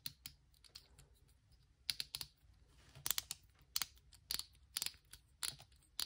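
Stackable plastic fidget blocks clicking as the segments are worked together in the hands: light, irregular clicks, some in quick little clusters.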